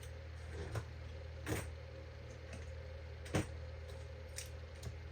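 A few sharp clicks and taps of small diecast metal toy vehicles being handled and set down, the loudest a little past three seconds in, over a steady low hum.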